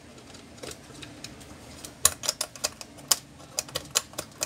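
Sharp plastic clicks and taps, an irregular run of about a dozen starting about two seconds in, as an electric fan's plastic base housing and its speed-switch assembly are handled.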